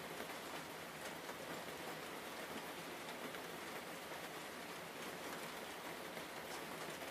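Steady, even hiss with faint scattered crackles, like rain falling on a surface.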